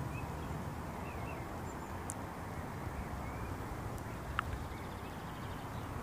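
Outdoor ambience: a steady low rumble, with a few faint, short bird chirps and a single brief tick a little past the middle.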